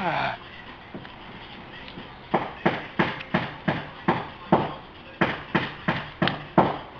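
Small fireworks going off: a run of about a dozen sharp bangs in quick succession, roughly three a second, starting a couple of seconds in. A short falling whistle sounds right at the start.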